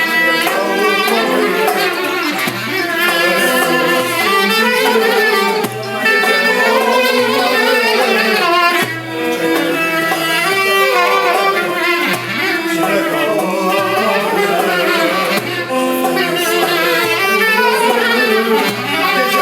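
Music: a song performed by a singer with instrumental accompaniment, the melody ornamented and wavering, over a steady pulse of low bass notes.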